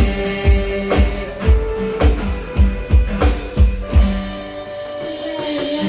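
Worship band playing an instrumental passage: guitar and other sustained chords over a steady drum-kit beat of about two kicks a second, the drums dropping out about four seconds in while the held chords ring on.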